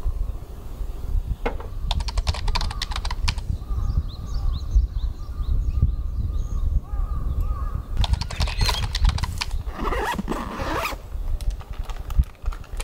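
Handling noises of gear being moved: rustling and quick clicks in two spells, about two seconds in and again about eight seconds in, over a steady low rumble.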